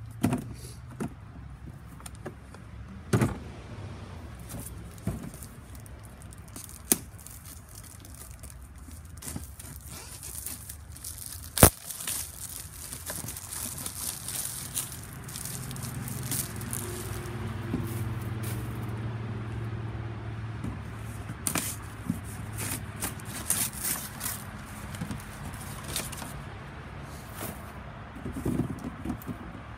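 Cardboard tool box and plastic packaging being handled and opened: crackling, rustling and tearing with scattered sharp knocks, the loudest about twelve seconds in. A low steady hum sits under it through the middle.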